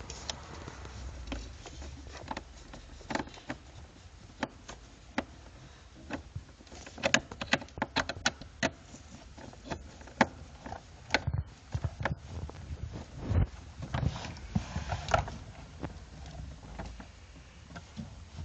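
Irregular clicks, taps and knocks of plastic and metal parts being handled while fitting a car's heater blower fan unit, with a denser cluster of clicks a few seconds in and again past the middle.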